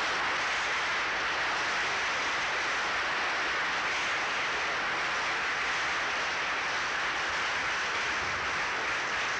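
Studio audience applauding: steady, dense clapping.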